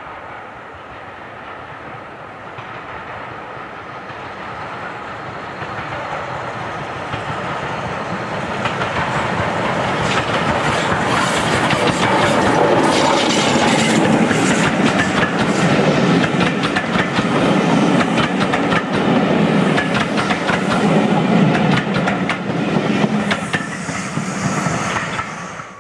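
LNER B1 4-6-0 steam locomotive No. 61264 with its passenger coaches approaching and passing close by. The sound grows louder for about ten seconds, then the coaches clatter rhythmically over the rail joints as they go past.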